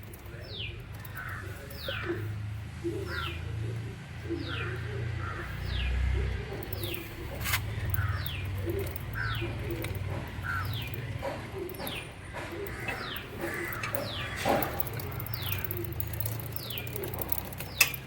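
Dry, rusted motorcycle drive chain running over its sprockets on a Suzuki 250 before lubrication, a low steady hum with a squeak and chirp repeating about once a second. The growling chain noise is the sign of a chain run without oil.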